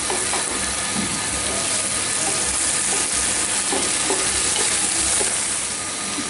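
Small shrimp frying dry with onion and capsicum in oil in a pan, sizzling steadily while a wooden spatula stirs and scrapes them. The shrimp are well fried and almost done.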